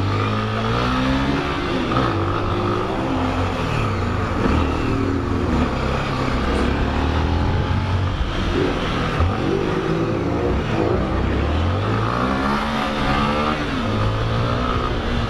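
Honda XRE 300 motorcycle engine under way, its pitch rising and falling again and again as the rider accelerates, changes gear and eases off.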